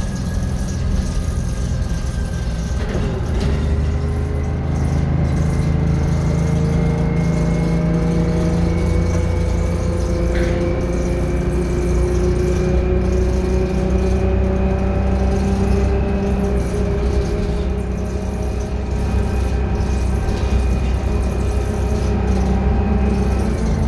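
Detroit Diesel 6V71N two-stroke V6 of a GM New Look transit bus pulling under way, heard from inside the bus, with its Allison V730 automatic transmission. The engine note and a high whine drop suddenly as the transmission shifts about three seconds in, then climb steadily as the bus gathers speed, level off past the halfway point, and drop again with another shift at the very end.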